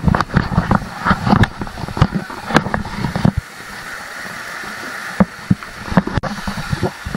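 Rushing water, heard as a steady hiss. For the first three seconds or so it is overlaid by irregular low thumps and knocks, which then drop away.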